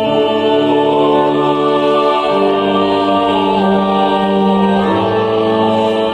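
Choir singing slow sacred music in long held chords, the harmony shifting every two to three seconds.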